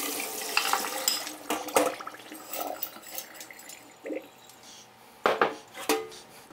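Rinse water and dried white beans poured from a glass bowl into a metal mesh strainer, the water splashing and draining into a stainless steel sink and fading after the first couple of seconds. Then the beans rattle and clink as they are stirred by hand in the strainer, with two sharp knocks of metal and glass against the sink near the end.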